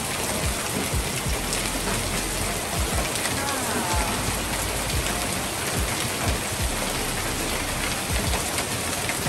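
Hail mixed with rain falling steadily: a dense, even hiss with occasional low thumps.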